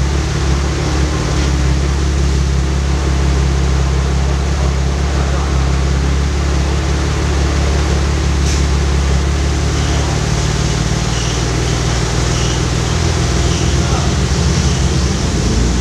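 BMW E36 M3's straight-six engine idling steadily through its exhaust on a dyno, an even, low note.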